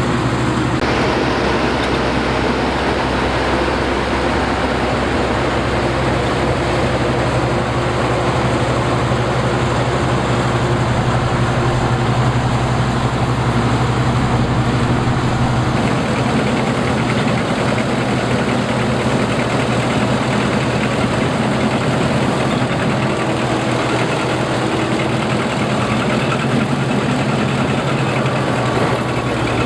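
Combine harvester running steadily in a rice field: a continuous engine drone with the machinery's mechanical noise on top.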